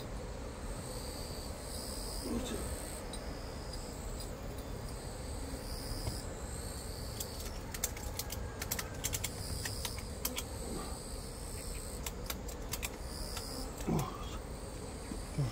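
Ratchet tie-down strap clicking as it is cranked tight around stacked hive boxes, in two runs of quick clicks about halfway through and again later. Insects trill in the background.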